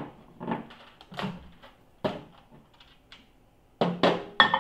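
Microwave oven door clicking open, then a series of knocks and clinks as a plate is handled and set inside, ending in a cluster of louder clinks with a brief ring as it goes down on the turntable.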